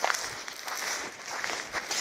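Footsteps crunching in fresh snow, a quick irregular run of short crunches.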